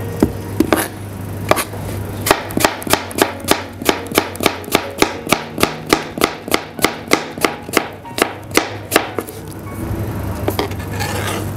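Kitchen knife chopping apple on a cutting board: a few single cuts, then a steady run of chops at about four a second from about two seconds in until about nine seconds in.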